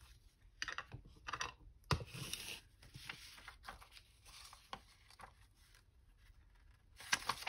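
Sheets of paper being handled: light rustling and crinkling with scattered small taps and clicks, one sharper tap about two seconds in.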